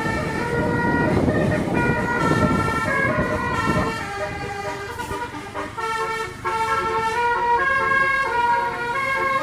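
A bus's multi-tone basuri (telolet) horn playing a tune, stepping quickly from note to note. It sounds over road and engine rumble that eases off about four seconds in.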